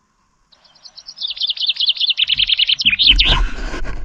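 A songbird singing a fast run of high, slightly falling notes for about two seconds. A loud rushing noise with a low rumble follows about three seconds in.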